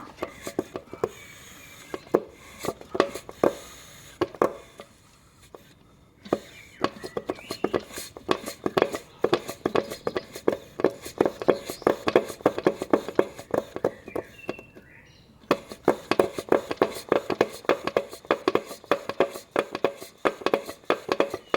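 Rapid, uneven metallic knocking from the 1.2 TSI's piston and connecting rod, several knocks a second, the sign of play in a worn small-end bushing. The knocking breaks off briefly about six and fifteen seconds in.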